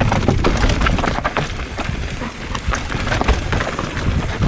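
Mountain bike descending a loose, dry, rocky trail: tyres crunching over dirt and stones, with a dense run of rattles and knocks from the bike over a low rumble of wind on the microphone.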